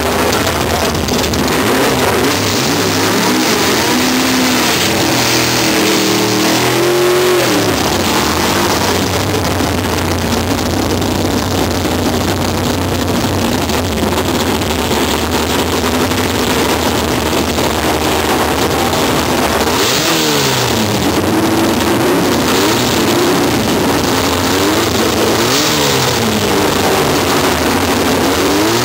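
Drag cars running loudly at the starting line, their engines revved repeatedly: a long rising rev a few seconds in that drops off sharply, then several quick up-and-down revs near the end.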